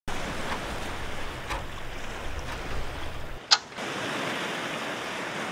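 Sound-effect ocean waves washing steadily, with one short, sharp hit about three and a half seconds in, the loudest moment. The deep rumble under the waves drops away just before the hit.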